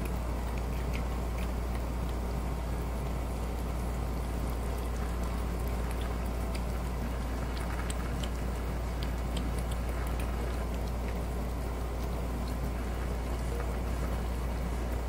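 Two cats eating wet food from stainless steel bowls: many small wet clicks of licking and chewing, over a steady low hum.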